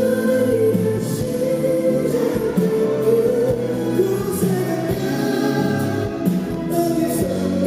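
Live concert performance of a Korean pop ballad: the band plays with sustained singing.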